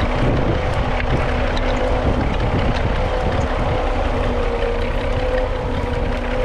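Perkins P6 six-cylinder diesel in a Fordson Model N tractor running steadily under ploughing load, pulling a two-furrow trailed plough. The engine holds a constant note throughout, with wind buffeting the microphone.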